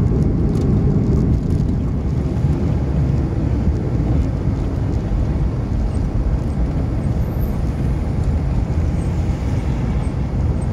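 Steady low engine and road rumble inside the cabin of a lowered BMW E36 being driven.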